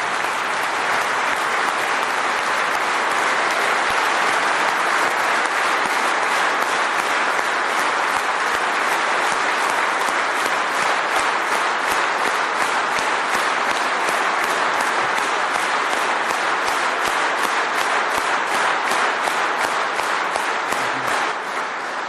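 A large assembled audience applauding steadily, the clapping falling into a regular rhythm in unison. It begins to fade near the end.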